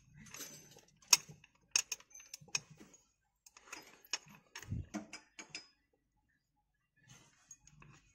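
Metal gearbox parts clicking and clinking as the steel gear selector forks of a Bajaj Pulsar 135 gearbox are fitted onto the shafts in the open crankcase. Several sharp clicks and taps, with a duller knock about five seconds in, then a pause of a second or so before faint handling noise returns.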